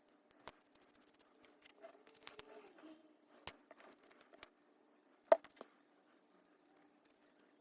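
Small clicks, taps and rustles of handling cardboard jigsaw puzzle pieces and small tools while gluing them, with a sharper click about five seconds in. A faint steady hum runs underneath.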